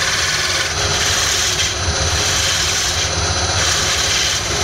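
Wood lathe running with a steady motor hum while a parting tool cuts into the spinning wood, the cutting noise swelling and easing a few times. The cut is an undercut beneath the skirt of a turned pedestal.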